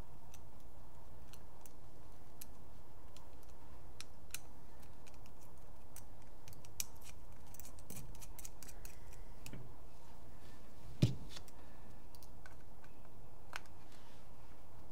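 A small hand tool being handled and adjusted at a bench, making scattered light clicks and ticks, with one louder knock about eleven seconds in.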